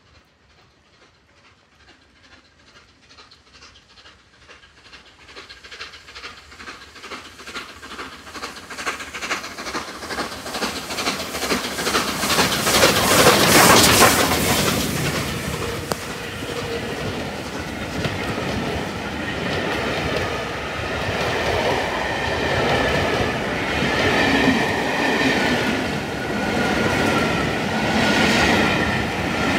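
Steam locomotive approaching and passing at speed. Its rhythmic chuffing exhaust grows steadily louder and is loudest as the engine goes by about 13 to 14 seconds in. After that comes the steady rumble and clickety-clack of its coaches rolling past.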